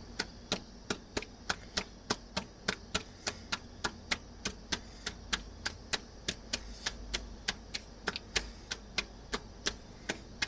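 Wooden rolling pin rolling out roti dough on a rolling board, clacking against the board in a fast even rhythm of about three to four clicks a second.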